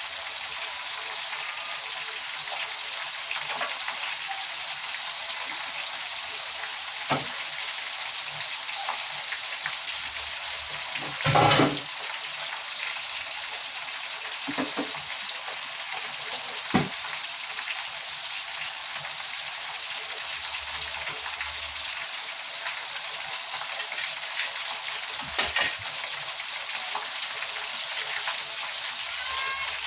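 Chicken pieces frying in hot oil, a steady sizzle, with a few sharp knocks, the loudest a short clatter about eleven seconds in.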